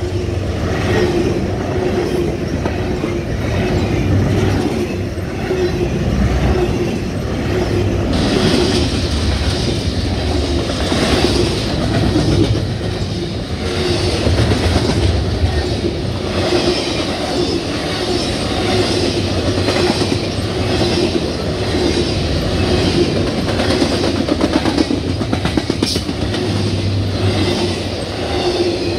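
Double-stack intermodal freight train's well cars rolling past at track speed: a steady loud rumble with repeated clatter of the wheels over the rail joints, and an on-and-off hum from the wheels on the rail.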